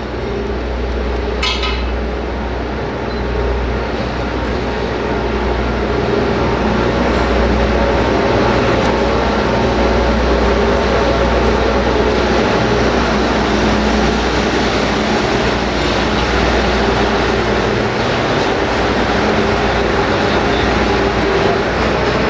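Diesel engine of a Plasser & Theurer SSP-2005 SWR ballast regulator running with a steady low hum as the machine travels slowly past on the rails, growing louder over the first several seconds and then holding. A brief high metallic clink about a second and a half in.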